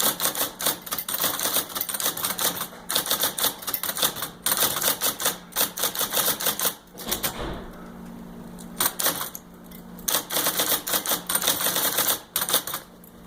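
IBM Selectric electric typewriter typing in quick runs of rapid clacking key strikes, broken by short pauses, with the machine's motor humming steadily underneath.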